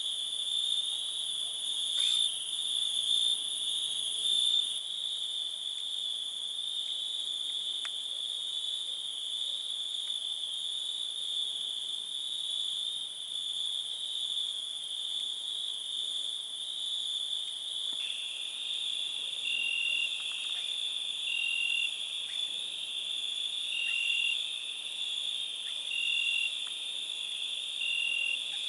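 A steady, unbroken chorus of crickets trilling. About two-thirds of the way through, a second, lower-pitched insect joins with short chirps about every two seconds.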